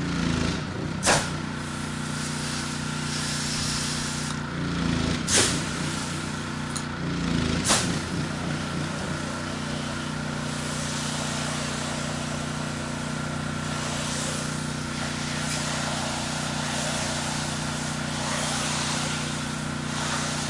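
Pressure washer engine running steadily with a constant hum, while water sprays with a hiss. Three sharp clicks stand out, about one, five and eight seconds in.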